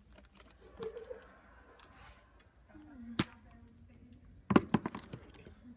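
Sharp clicks and taps of small hard objects being handled: a single loud click about three seconds in, then a quick run of clicks about four and a half seconds in.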